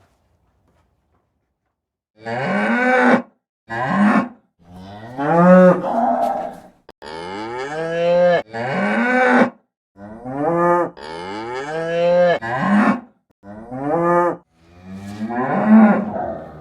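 Cow mooing over and over, about ten loud calls in quick succession beginning a couple of seconds in, several rising and then falling in pitch.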